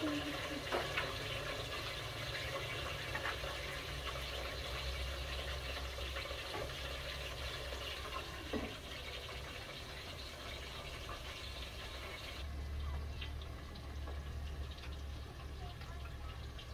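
Steady watery hiss of a metal pot cooking on a small stove, with a few light metal clinks as the pot and its lid are handled. The hiss thins about twelve seconds in.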